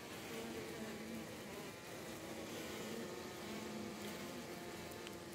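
Honeybees buzzing in flight, a faint hum that wavers in pitch and comes and goes as individual bees pass by.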